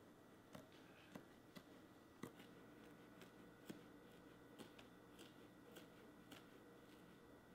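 Faint, irregular small clicks and ticks, roughly one every half second to second, over near silence: hands picking apart pre-scored pick-and-pluck foam inside a Pelican 1510 hard case.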